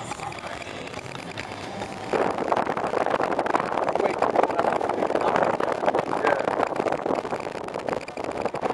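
A car being driven along a mountain road, heard from inside the cabin as a steady rush of road and wind noise. About two seconds in it turns suddenly much louder and rougher, and stays that way.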